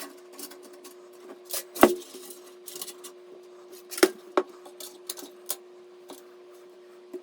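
Irregular clicks, taps and knocks of hardware being handled during PC assembly, two sharper knocks about two and four seconds in. A steady hum runs underneath.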